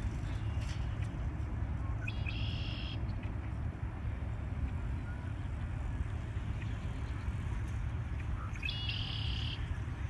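Red-winged blackbird singing its conk-la-ree song twice, about six seconds apart: a short lead-in note, then a buzzy trill of just under a second. A steady low rumble runs underneath.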